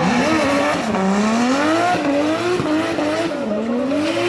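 Turbocharged Toyota Supra engine revving hard while drifting, its pitch swinging up and down about three times. Tyres squeal under it.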